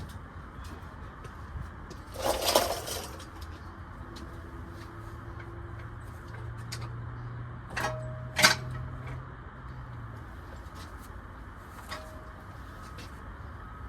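Metal tools or parts clinking a few times, two sharp clinks around the middle, one with a brief ring, with a rustle a couple of seconds in and a steady low hum underneath.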